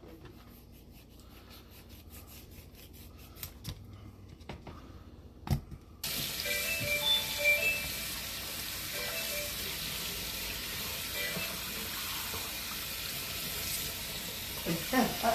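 A few soft knife clicks and a knock while a shark's fins are cut off. Then, about six seconds in, a kitchen faucet comes on suddenly and water runs steadily over the shark into a stainless steel sink.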